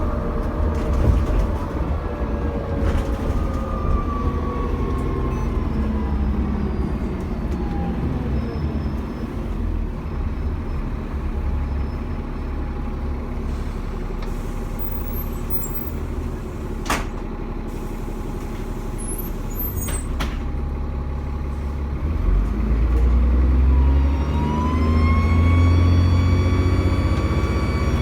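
Dennis Trident double-decker bus heard from on board: the diesel engine runs with a turbocharger whine that falls in pitch over the first several seconds as the bus slows. After a steady stretch with two sharp knocks, the engine gets louder about 22 seconds in and the turbo whine rises and then holds as the bus pulls away.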